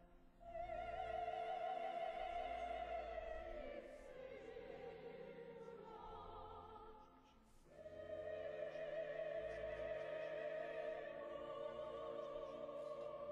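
Classical sacred music: a high voice sings long held notes with a wide vibrato over a steady low accompaniment. The singing breaks off briefly about seven seconds in, then a new phrase begins.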